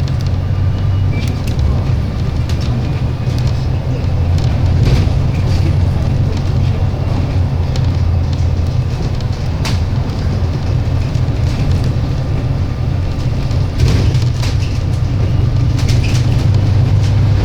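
MAN-chassis Alexander Dennis Enviro 300 single-deck bus running, a steady low engine and road rumble with scattered clicks and knocks.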